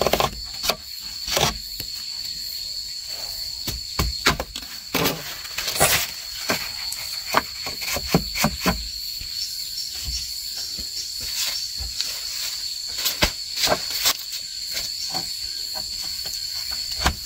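Irregular knocks, clicks and scrapes of bamboo being handled: a thin bamboo rod pushed and worked through a hole cut in a green bamboo post, and a bamboo crossbar fitted between posts. A steady high insect drone runs underneath.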